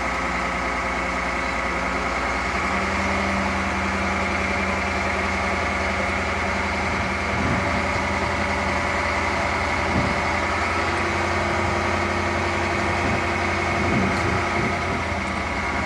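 Mobile crane's engine running steadily, with a steady high whine over it.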